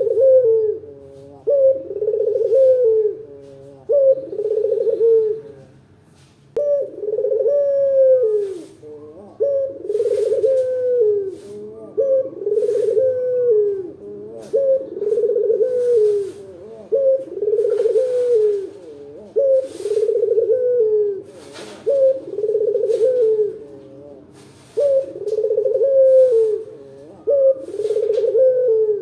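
Caged collared dove (local 'puter') cooing over and over, one rolling, dipping coo about every second and a half. There are short breaks about six seconds in and again around twenty-four seconds.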